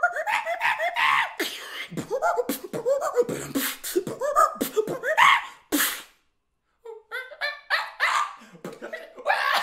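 Beatboxer's vocal imitation of a monkey: a quick run of short rising, chattering calls made with the mouth. It breaks off for about a second around six seconds in, then picks up again.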